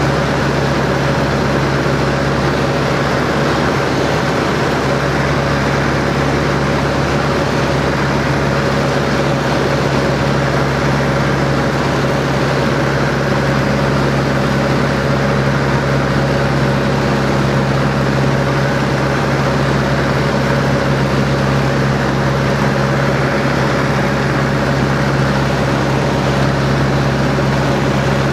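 De Havilland Chipmunk's four-cylinder Gipsy Major engine and propeller running steadily at cruise, heard from inside the cockpit with a constant rush of airflow.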